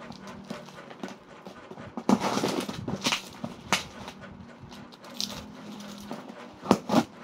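Taped cardboard box being opened by hand: scissors working at the packing tape, tape tearing and cardboard flaps being handled. A scraping tear of about a second comes about two seconds in, among scattered sharp clicks and knocks, the loudest two close together near the end.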